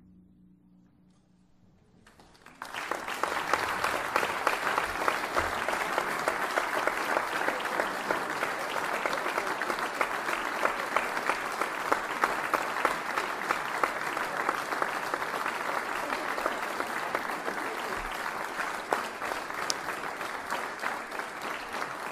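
After a short hush, an audience breaks into applause about two and a half seconds in and keeps clapping steadily.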